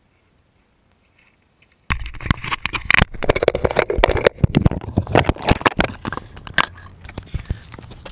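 Honda B16A DOHC VTEC inline-four running through a sidepipe exhaust (4-1 header, test pipe, resonator and SLP Loudmouth muffler). It cuts in abruptly about two seconds in, loud and crackly, then settles to a lower steady rumble near the end.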